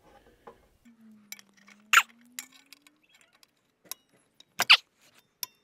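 Locking pliers clicking and clinking against the metal of a rear wheel hub as they are worked on a seized ABS wheel speed sensor. There are a few sharp metallic clicks, the loudest about two seconds in and again near five seconds.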